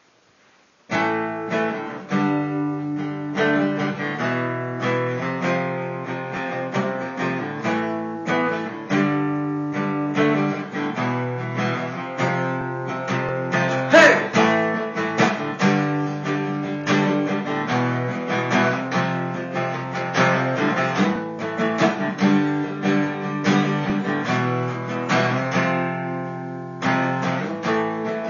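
Acoustic guitar played solo, an instrumental passage of repeated chords and plucked notes that begins about a second in, with one sharper accented strum about halfway through.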